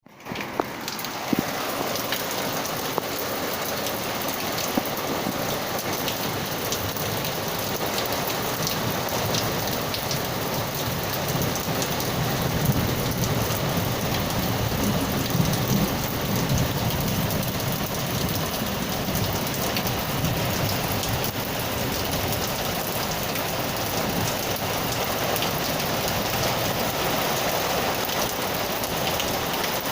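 Steady rain with scattered sharp drips landing close by, mostly in the first few seconds. A low rumble of distant thunder swells through the middle.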